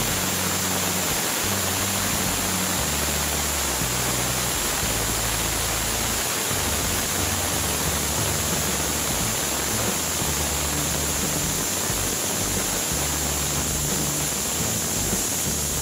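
Aluminium pressure cooker venting steam through its weight valve in a loud, steady hiss, with the low notes of background music underneath.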